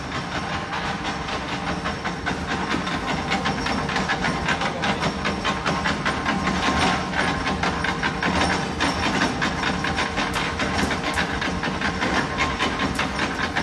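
Mechanical guillotine plate shear for steel sheet running: a steady hum under a rapid, even clatter.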